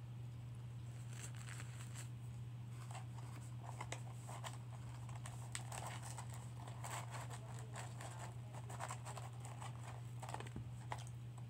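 Close eating sounds: chewing and the paper French fry carton crinkling as fingers pick out fries, many small irregular crackles, over a steady low hum.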